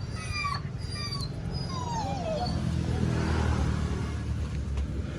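A dog whimpering: a few short high whines, then one longer whine falling in pitch about two seconds in, over a steady low engine-like hum.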